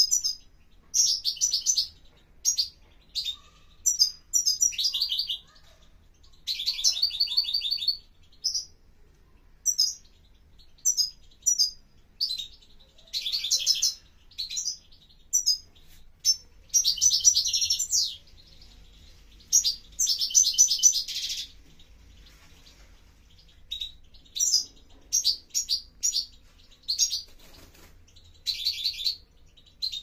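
Caged European goldfinch singing from under a cage cover: a string of fast, high twittering phrases and trills, some brief and some a second or two long, with short pauses between them.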